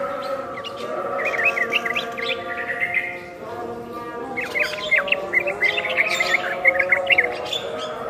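Caged yellow-vented bulbul (trucuk) and Javan myna (jalak kebo) calling together: bursts of rapid, quick-gliding chirps and whistles with a brief lull about halfway through. Steady tones run underneath.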